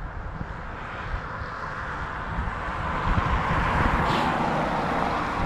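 Wind buffeting the microphone over a steady outdoor rushing noise that slowly swells louder.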